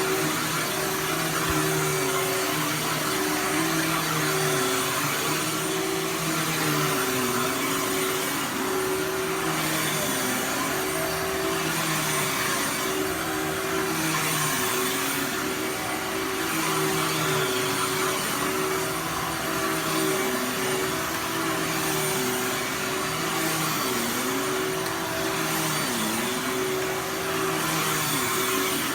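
Dirt Devil Ultra Vision Turbo vacuum cleaner running steadily while vacuuming, its motor note dipping briefly every few seconds.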